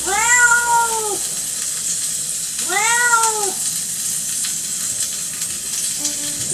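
Domestic cat meowing twice, each meow rising then falling in pitch, the first right at the start and the second about two and a half seconds in, over a steady high hiss.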